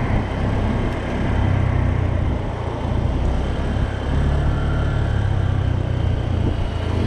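A Honda scooter running along the road at low speed, its engine and tyre noise mixed with wind rushing over the microphone in a steady, loud rumble.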